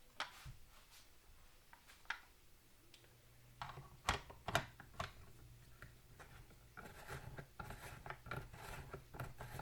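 Clicks and scrapes of plastic and metal parts being handled on a cordless brushless chainsaw while its bar, chain and tensioner are fitted. There are a few sharp clicks about four to five seconds in, then a run of quick clicks near the end.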